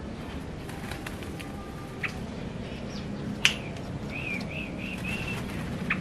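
Yellow-vented bulbul (trucukan) giving a short run of four wavering chirps, with three sharp clicks around them, the loudest just before the chirps begin.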